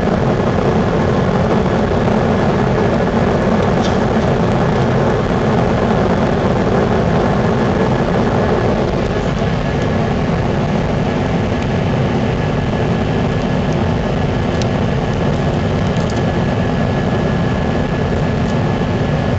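Steady, loud cabin noise of an Airbus A330-300 in flight, heard from a window seat next to its Pratt & Whitney PW4000-series turbofan: the engine's drone and the rush of air, with a thin steady whine on top.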